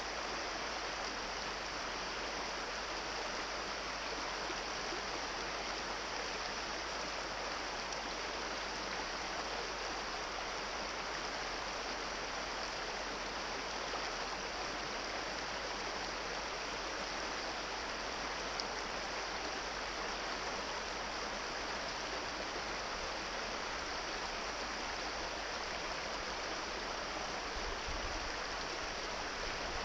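Small rocky brook running over stones and riffles: a steady, even rush of water.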